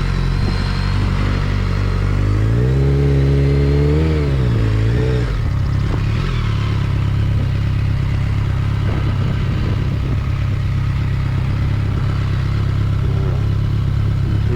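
BMW K1200GT's inline-four engine with an aftermarket Delkevic exhaust idling steadily, with one throttle blip about two and a half seconds in that rises in pitch and falls back to idle over a couple of seconds.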